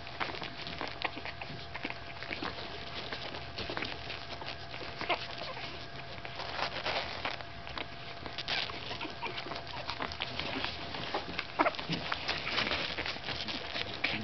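Two-week-old Staffordshire Bull Terrier puppies making small squeaks and grunts, with soft clicks and rustling as they crawl and nuzzle against their mother.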